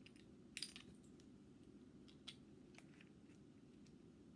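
Faint, scattered light clicks and taps of small objects being handled, a handful in all, over a low steady hum.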